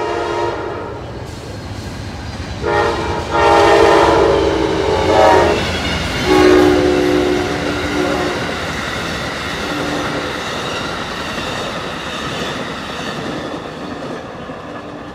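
Train horn sounding several blasts for a grade crossing, a chord of notes, with the two longest blasts about two seconds each in the first half. Under and after the blasts the train runs through the crossing with a steady rumble of wheels on rail and clickety-clack.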